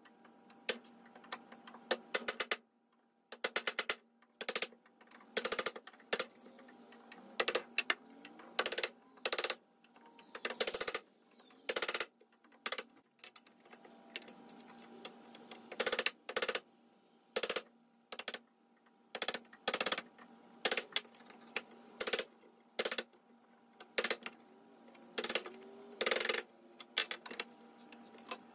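Wooden mallet, the yellow Osage orange kind, striking a wooden-handled chisel to chop a mortise in a softwood board held in a vise: sharp knocks, some in quick runs of taps and some as single blows, with short pauses between.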